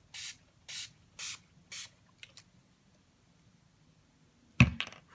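Four quick pumps of a makeup setting spray bottle, each a short hiss of fine mist, about half a second apart. Near the end, a sharp knock followed by a few small clicks.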